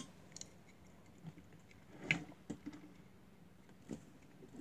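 A few light clicks and knocks of small toy cars being handled and set down on a wooden table, the loudest cluster about two seconds in.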